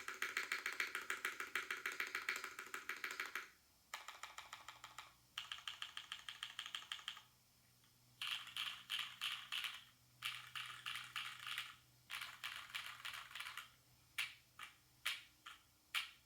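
Fast typing on a UTD 356 Mini mechanical keyboard with lubed Durock Corsa tactile switches in an aluminium case and GMK doubleshot ABS keycaps. The keystrokes come in quick runs broken by short pauses, ending in a few separate keystrokes.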